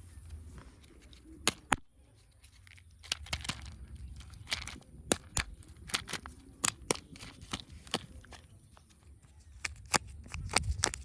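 Surprise eggs and their wrappers being opened by hand: many irregular sharp clicks and snaps of plastic, with short bursts of crinkling and tearing of wrappers.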